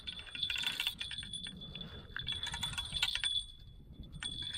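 Spinning reel being cranked in three short bursts, its gears and rotor giving a fast run of ticks with a thin high whir.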